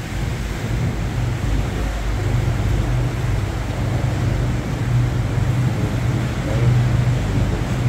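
Passenger boat's engine running with a steady low drone, with wind rumbling on the microphone.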